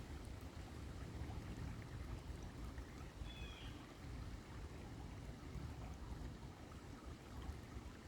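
Steady running or lapping water with a low, uneven rumble, and one short high chirp about three seconds in.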